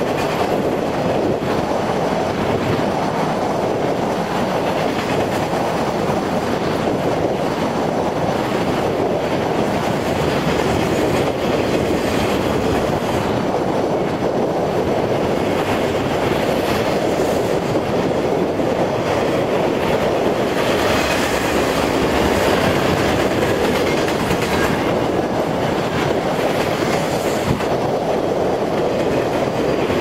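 Long freight train of double-stack container cars and autorack cars rolling past: a steady rumble of steel wheels on rail with the clickety-clack of the cars going over rail joints.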